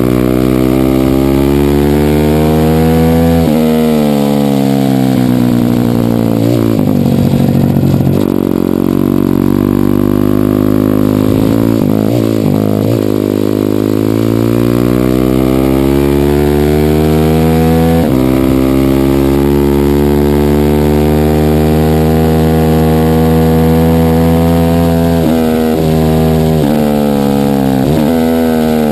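Minibike engine heard from on board at racing pace, revs climbing along the straights and falling away into the corners, with choppy, uneven stretches where the rider slows for bends and a sudden step in the engine note about eighteen seconds in.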